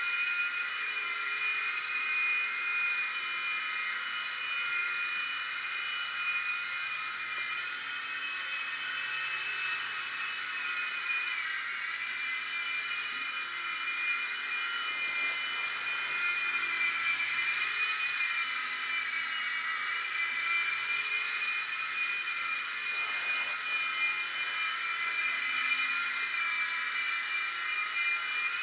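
Blade mCX2 micro coaxial RC helicopter in flight: its small electric motors and counter-rotating rotors make a steady, high-pitched whine that wavers and dips in pitch briefly a couple of times.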